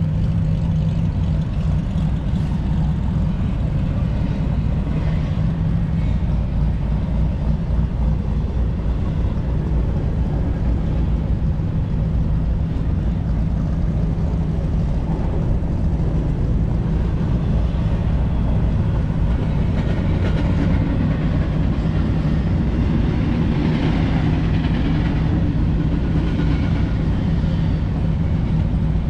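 Car engine idling: a steady low hum that does not change.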